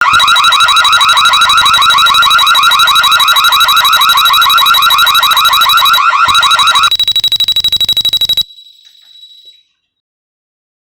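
Built-in siren of a Tuya smart WiFi door sensor sounding a loud, rapidly warbling alarm. About seven seconds in the pattern switches to a faster pulsing tone. It cuts off suddenly about eight and a half seconds in, leaving a faint tone that dies away a second later.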